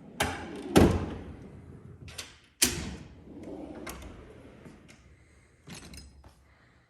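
Metal Snap-on toolbox drawers sliding open and shut on their runners, with a series of metal bangs and clunks as they close. The two loudest bangs come just under a second in and at about three seconds, with rolling sliding noise between the knocks.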